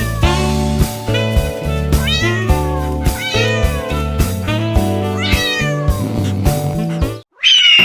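Background music with a steady beat, and a cat meowing over it about five times, each meow a short falling call. Near the end the music cuts out for a moment and a different, louder sound starts.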